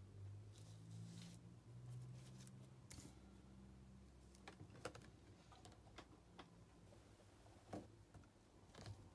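Faint, scattered light taps and rustles of a rubber stamp being pressed onto paper and lifted, with a low steady hum under the first few seconds.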